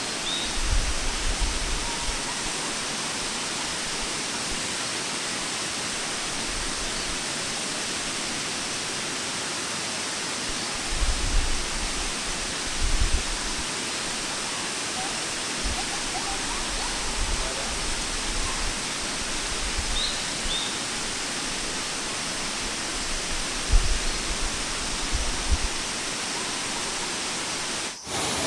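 Sungai Pandan Waterfall's cascading water, a steady even rush. A few brief low rumbles break through it now and then.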